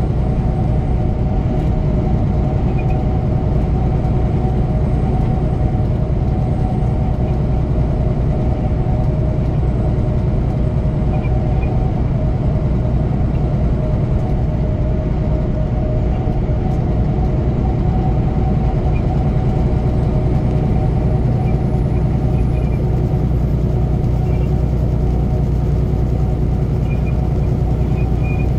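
Semi truck cruising at highway speed: a steady drone from its diesel engine at an even pitch, mixed with tyre and road noise.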